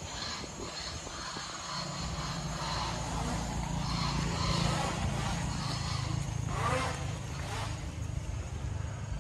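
A motor vehicle engine running steadily, a low hum that sets in about two seconds in.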